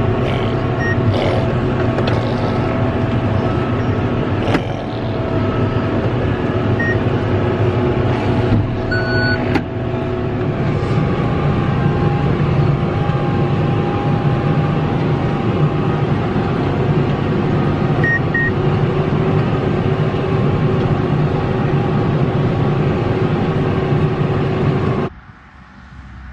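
John Deere tractor and McHale round baler at work, heard from inside the tractor cab: a steady engine and machinery drone, with a few short electronic beeps from the baler's control box. About a second before the end the sound drops sharply to a quieter, more distant tractor-and-baler sound.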